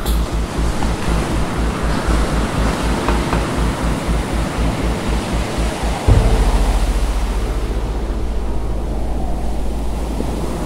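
Wind and breaking sea rushing around a sailboat under way in heavy weather, with heavy wind rumble on the microphone. The rumble pulses unevenly, then jumps louder and steadier about six seconds in.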